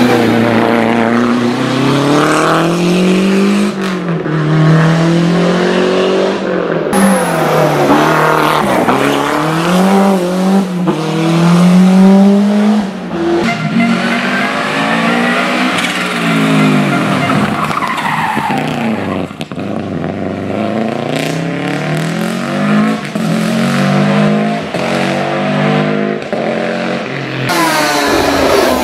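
Historic rally cars driven hard: engines revving up through the gears and dropping back again and again as cars accelerate, brake and pass, one after another. The sound breaks off abruptly about seven seconds in and again near the end.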